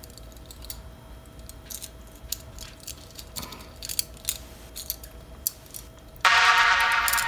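Metal toy handcuffs being handled: irregular light clicks and metallic rattles from the cuff arms and ratchet. About six seconds in, background music comes in suddenly and is louder than the clicks.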